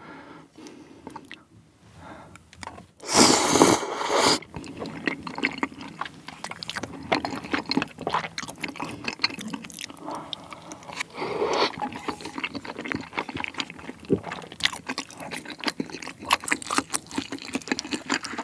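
Close-miked eating sounds: chewing and wet mouth noises with many small clicks, from spicy tteokbokki mixed with sauce. A loud, short rush of noise comes about three seconds in.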